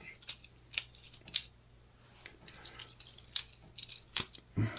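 Boker Plus balisong butterfly knife being flipped: irregular sharp metal clacks as the handles and blade swing round and knock against each other.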